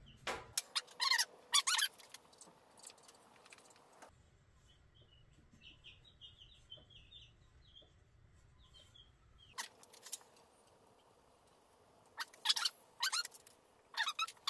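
Baby chicks peeping faintly in a run of short, high cheeps, with sharp clicks and taps from tool handling at a workbench near the start and near the end.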